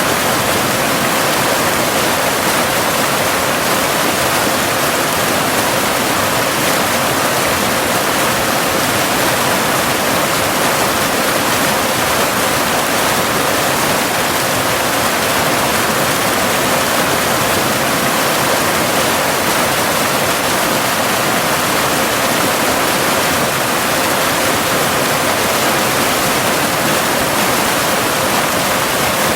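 Steady, unbroken rushing of a cascading waterfall, with a faint steady 528 Hz binaural tone mixed underneath.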